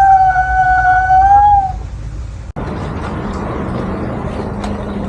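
Husky giving one long howl that sags slightly in pitch and stops about two seconds in. After a sudden cut, a steady background hiss.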